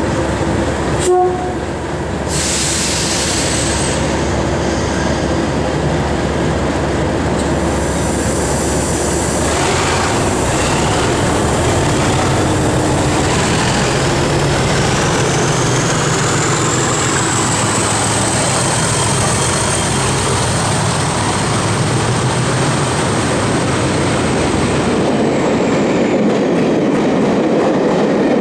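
English Electric Class 37 diesel locomotive, its V12 engine running loud and steady as it approaches and passes hauling coaches. A short horn blast sounds about a second in, and a thin high whine rises through the middle and fades near the end.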